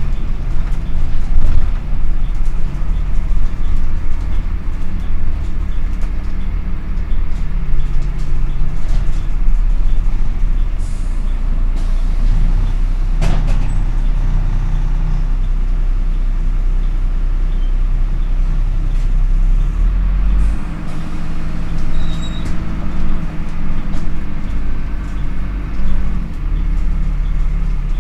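Dennis Dart SLF bus diesel engine running with its radiator cooling fan switched on, a loud steady rumble and whirr. A short hiss of air comes about eleven seconds in, and a sharp click a couple of seconds later.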